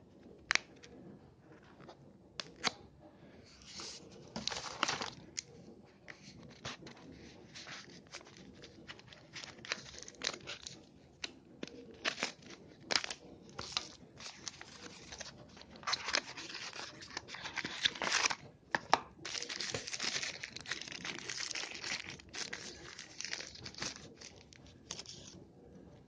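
Packaging being opened by hand: crinkling and tearing of wrapping, with scattered sharp clicks and knocks, and a longer stretch of steady rustling near the end.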